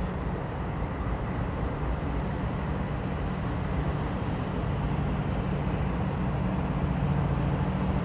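GE C40-8 diesel-electric freight locomotives working under power, the steady drone of their 16-cylinder diesels slowly growing louder.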